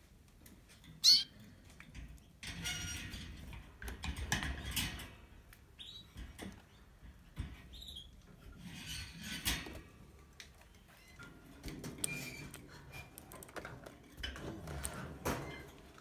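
Pet canaries: one sharp, loud call about a second in, then a few short faint chirps among stretches of rustling and scratching movement in the cage.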